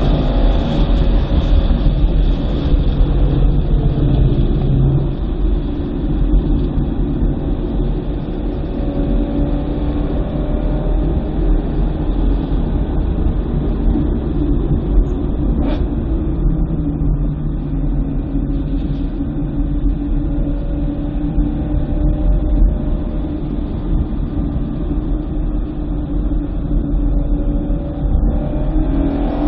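BMW M3's V8 engine running under load at speed over a heavy low rumble of road and wind noise. The engine note falls over the first few seconds, holds fairly steady through the middle and climbs again near the end, with one brief click a little past halfway.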